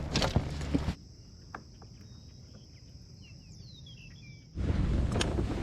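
Birds chirping, with a run of short falling calls, over a steady high insect drone in a quiet stretch. This stretch sits between loud, rushing noise that stops about a second in and starts again near the end.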